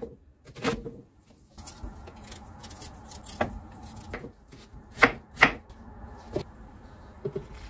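Kitchen knife chopping onion on a wooden cutting board: a few scattered sharp knocks of the blade on the board, the two loudest close together about five seconds in.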